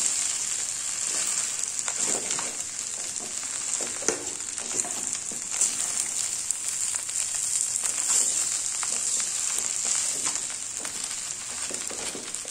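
Steel spoon stirring and scraping steamed vermicelli through a hot stainless steel kadai over a steady frying sizzle, with scattered small clicks of spoon against pan.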